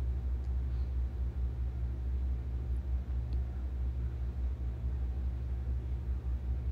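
A steady low rumble with a faint hum, with no clear event on top of it.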